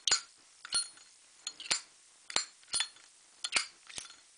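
Zippo lighter lid flicked open and snapped shut over and over, giving sharp metallic clicks about every half second to second. The lid's click is back after a bent part inside the lid hinge was straightened.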